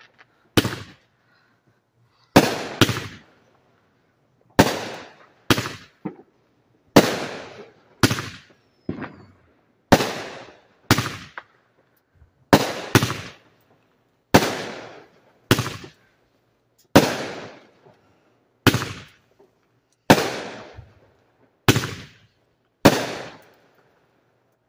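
Aerial fireworks going off in a steady string of about twenty loud bangs, roughly one a second and sometimes two close together, each trailing off in an echo.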